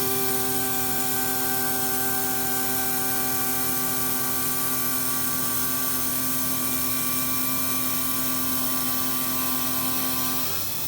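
Tormach 770 benchtop CNC mill spindle running at a steady speed with a whine of several fixed tones. The tones drop away about ten and a half seconds in.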